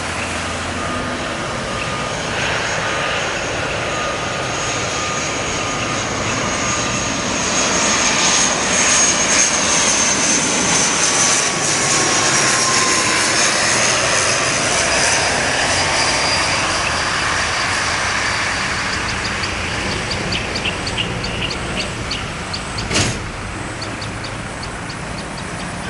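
ATR 72 twin-turboprop airliner passing close on landing approach: a steady engine and propeller drone with a whine that falls slowly in pitch as it goes by, loudest about a third of the way in and fading as it lands. A single sharp click near the end.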